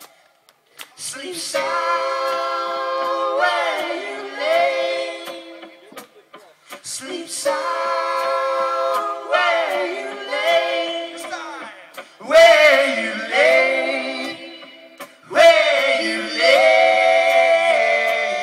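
A mixed group of men's and women's voices singing a cappella as a round, in phrases a few seconds long with short breaks between them.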